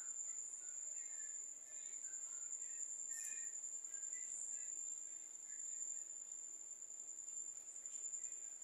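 A cricket trilling: one steady, unbroken high-pitched tone throughout, with faint short chirps scattered beneath it.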